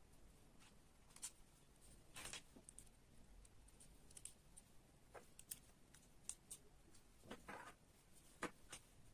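Faint scattered clicks and two brief rustles of small model-kit parts being handled, against near silence.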